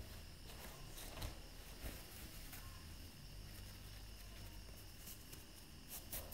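A few faint rustles of cloth as a headscarf and handkerchief mask are adjusted by hand, two of them close together near the end, over a steady low hiss and hum.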